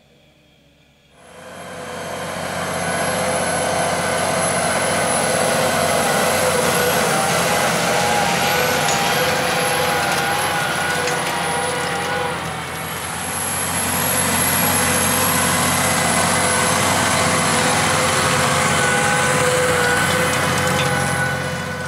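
Massey Ferguson 8680 DynaVT tractor's six-cylinder diesel running steadily under load while pulling a Köckerling seedbed cultivator, with a steady whine over the engine. It comes in about a second in, dips briefly about halfway through, then holds steady.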